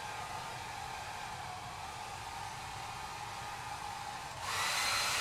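Handheld hair dryer blowing steadily, a hiss of warm air with a faint whine, growing louder about four and a half seconds in.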